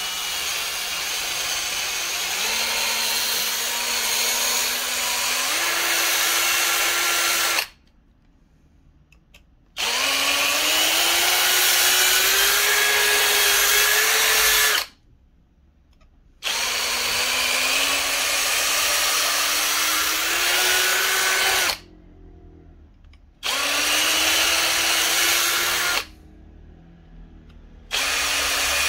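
Small electric drill drilling out the rivet on a die-cast toy car, run in five bursts of a few seconds with short pauses between; the motor's whine climbs in pitch during each run.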